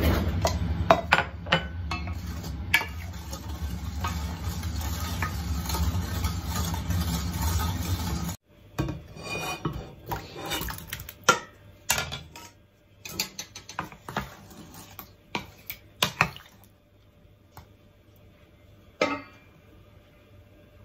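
Clinks and knocks of dishes against a stainless steel pot over a steady low hum. About eight seconds in the hum stops abruptly, and kumquats are tipped from one stainless steel pot into another with a wooden spatula, giving scattered separate knocks and clinks.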